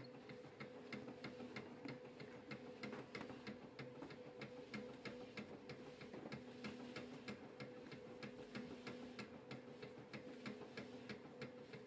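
Conical dough-rounding machine running, faint: a steady hum with fast, regular ticking, about three to four ticks a second.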